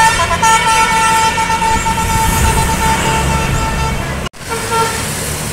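Tour bus's Basuri telolet horn holding one long steady note over the bus engine's low rumble. A sudden break comes about four seconds in, then short, lower horn notes.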